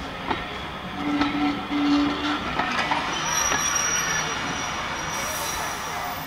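Heritage railway train on the move, its wheels clicking over the rail joints. A low tone sounds twice about a second in, and a thin high wheel squeal follows a little later.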